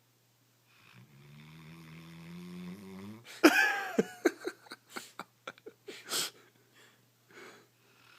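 Greater Swiss Mountain Dog snoring in its sleep: a long, low drawn-out snore that rises slightly in pitch, then a loud snort about three and a half seconds in, followed by a quick run of short snuffles.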